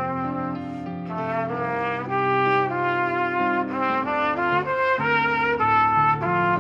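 A trio of trumpets playing a written arrangement in harmony, with several parts at once that hold notes and move from one chord to the next.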